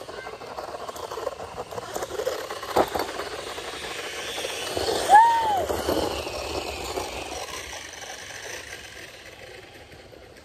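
Scooter wheels hissing and splashing through a shallow mud puddle, growing louder as the scooter passes close and then fading away. About five seconds in, at the loudest point, there is a short squeal that rises and falls in pitch.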